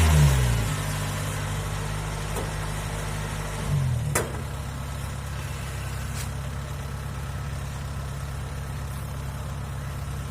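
Kubota DC70 Plus combine harvester's diesel engine throttling down: its pitch drops at the start and again about four seconds in, with a short click, then it settles into a steady idle.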